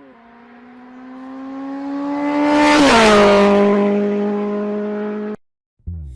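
A motor vehicle passing by: a steady engine note grows louder, drops in pitch as it passes about three seconds in, then carries on a little quieter and cuts off suddenly near the end.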